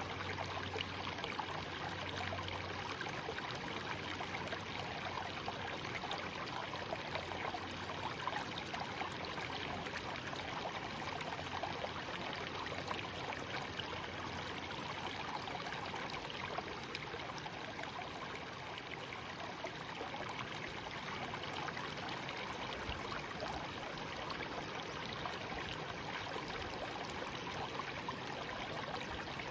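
Shallow stream babbling and trickling over stones, a steady bright rush.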